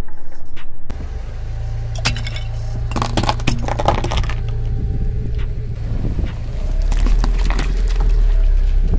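Car tyre rolling over small plastic toys that crack and snap in several bursts of crackling, about 2, 3 to 4 and 7 to 8 seconds in, over the car's steady low rumble.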